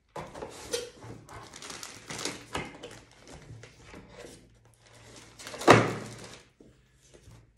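Packaging and detector parts being handled during an unboxing: rustling and light knocks, with one louder thump a little after halfway.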